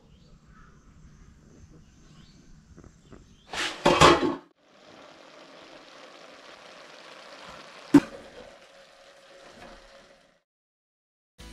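Cooking in a metal pot of shredded cabbage on a stove: a loud, brief noisy rustle about four seconds in, then a steady hiss, with a single sharp clank of a metal spoon against the pot about four seconds later.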